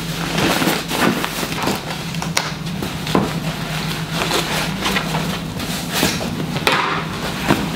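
White cotton cushion cover and cushion rustling as they are handled, fabric rubbing and flapping with soft knocks, over a low steady hum.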